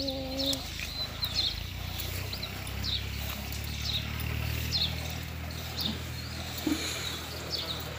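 Small birds chirping again and again over a steady low hum, while a cow is hand-milked into a metal pail. A brief steady low tone sounds at the very start.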